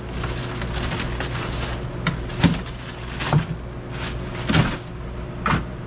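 Frozen bait packages in plastic bags being handled and shifted inside a chest freezer: plastic crinkling and about five sharp knocks of frozen packs. A steady hum runs underneath.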